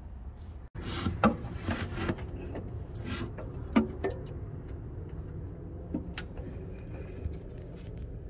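Hand work under a truck engine fitting a crankcase breather adapter: metal clinks and knocks of the part and bolts against the block, mixed with clothing rustling against the microphone. It is busiest from about one to four seconds in, with scattered clicks after.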